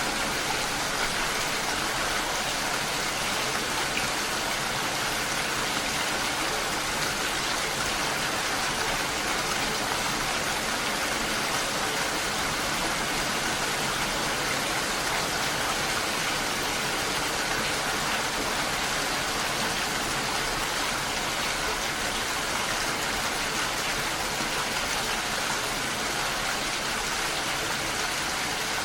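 Steady rain falling, a continuous even hiss of many drops that neither swells nor breaks off.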